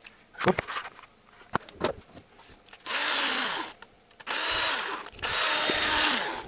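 Cordless drill-driver with a 10 mm socket spinning off the nuts that hold the ignition coils on a Honda D17A engine, in three short runs, each rising and falling in pitch. A few light clicks of the socket being fitted come before the first run.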